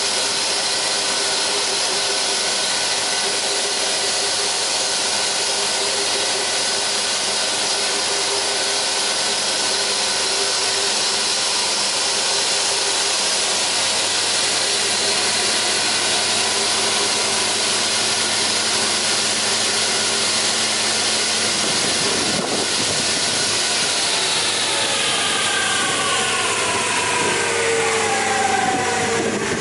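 FOD Bydgoszcz double-sided parquet tenoner running with no wood fed: its electric motors and spinning cutter heads make a steady hum and whine over a rushing hiss. About two-thirds of the way through there is a click, and then the tones slowly fall as the machine runs down.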